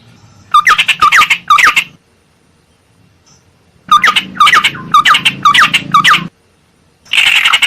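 Ciung air bird calls from a lure recording: a bout of quick, repeated hooked notes, a short pause, then a longer bout of the same notes. Near the end comes a harsh, buzzy chatter.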